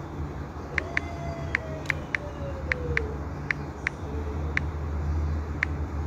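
Fingertip taps on a tablet's glass touchscreen: light, sharp clicks at an irregular pace, a few a second, over a steady low hum.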